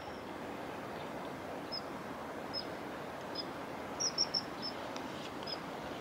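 Common kingfisher giving short, high, thin calls, roughly one a second, with a quick run of three or four about four seconds in, over the steady rush of a shallow stream.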